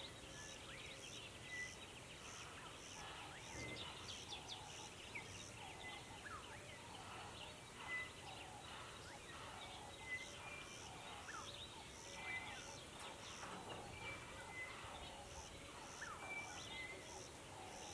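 Several birds calling and singing faintly, with short whistles repeated about once a second over a regular high chirping about twice a second that pauses twice.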